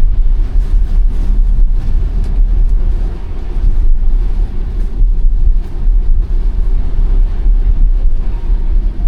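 Steady low road and tyre rumble of a 2021 Tesla Model Y driving, an electric car with no engine note.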